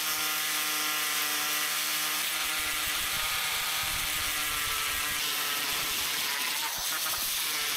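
Electric angle grinder with a sanding disc running steadily, sanding loose, flaking paint off a wooden oar blade. The motor's steady whine sits under a rough rasp as the disc works the surface.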